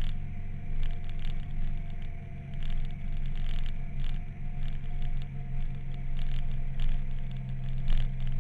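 Motorcycle engine running at a steady speed while riding downhill, with wind buffeting and crackling on the bike-mounted camera's microphone.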